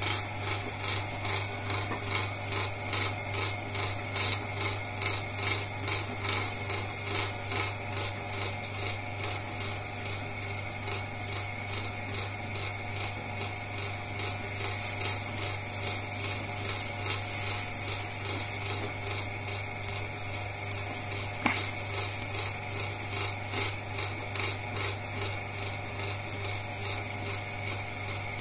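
Potter's wheel running with a steady hum while wet hands shape a clay vase spinning on it, giving a regular swishing pulse about twice a second. One sharp click about three-quarters of the way through.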